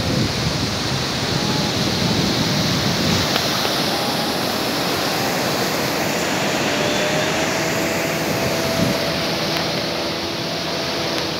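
Surf washing up on a sandy beach, a steady rushing noise. About halfway through a faint, steady engine-like drone joins it.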